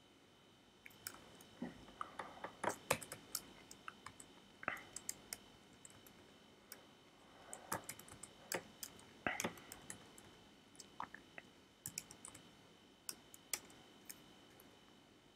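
Computer keyboard typing: faint, irregular keystroke clicks in quick clusters with short pauses, as a shell command is typed.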